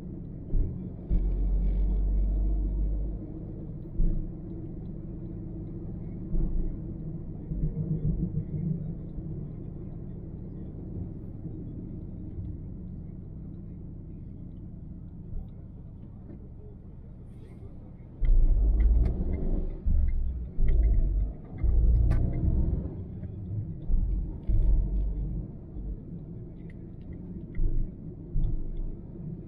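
Car driving along a road, heard through an action camera's microphone: steady low road and engine rumble. About two-thirds of the way in, a run of loud, uneven low surges comes in.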